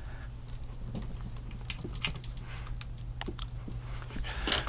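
Light, irregular clicks and clinks of small metal clutch parts being handled and seated as the bearings go into a motorcycle engine's clutch, over a steady low hum.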